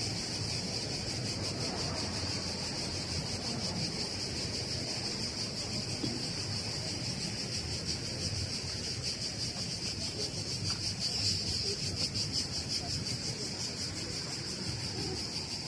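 Cicadas droning in the trees in a steady, high-pitched chorus with a rapid pulse.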